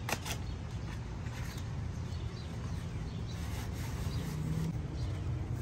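Light handling noise of a model train passenger car being eased out of its cardboard box: faint rustling and a couple of small clicks near the start, over a steady low hum.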